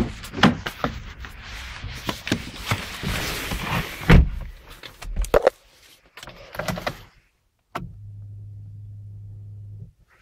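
Rustling, clicks and knocks of handling inside a car for about the first half. After brief drop-outs comes a steady low hum from the Chevrolet Cruze's 1.6 16V petrol engine idling cold.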